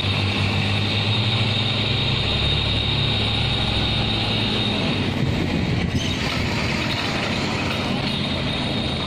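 Hino diesel engine of a log-towing river boat running steadily under load: a low drone with a steady high whine over it and a wash of churning water.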